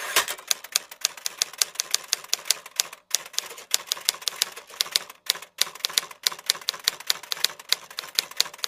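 Typewriter keys clacking in a quick run of sharp strikes, about five a second, with brief pauses about three and five seconds in. It is a typewriter sound effect that cuts in and out abruptly.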